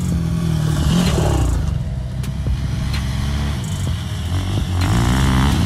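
Quad (ATV) engine running close by, its pitch rising and falling a few times as it is revved and eased off.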